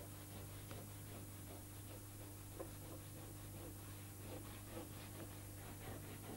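Wax crayon rubbed on its side back and forth across thin paper laid over modelling clay: a faint scratchy stroke repeating a few times a second, over a steady low hum.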